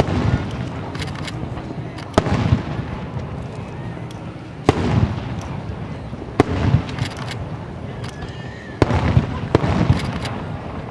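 Aerial firework shells bursting overhead: about half a dozen sharp bangs, a couple of seconds apart and closer together near the end, each trailing off in a low rumble.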